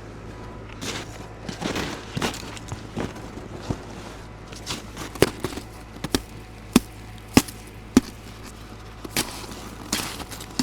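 Footsteps crunching on a hard snow crust: a string of sharp crunches, uneven at first, then settling into a steady pace of under two a second in the second half.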